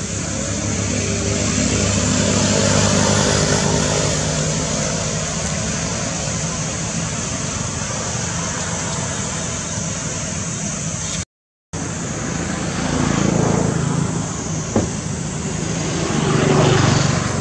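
A motor vehicle's engine running with a steady low hum; the sound breaks off briefly about eleven seconds in, then swells twice more near the end.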